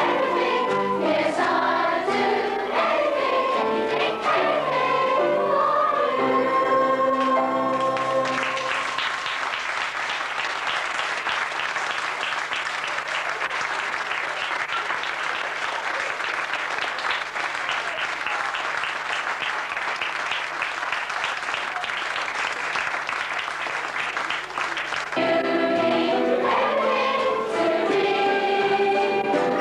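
Children's school cast singing together in chorus. About eight seconds in the singing gives way to audience applause lasting some sixteen seconds, and then the chorus singing starts up again.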